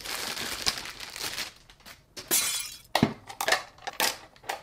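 Clear plastic bag crinkling and rustling as a small plastic toy machine is pulled out of it, then a quick run of sharp clicks and taps of hard plastic being handled.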